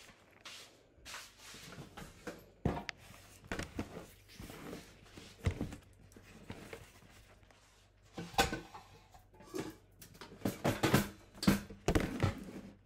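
Irregular knocks, clicks and rustles of food packages, among them a plastic clamshell container, being handled and set down on a kitchen counter.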